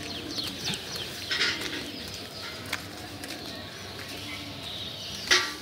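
Birds calling at dawn: many short, high chirps repeating over a low cooing, with one louder, sharper sound near the end.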